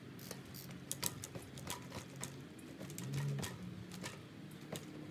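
Mountain bike rear hub clicking in irregular runs of ticks as the pedals are ratcheted back and forth while the rider balances in place. There is a brief low vocal sound about three seconds in as the front wheel is lifted onto a wooden box.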